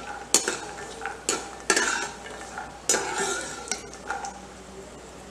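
Slotted metal spatula stirring almonds and cashews frying in ghee in a kadhai: several scrapes and knocks against the pan over a light sizzle.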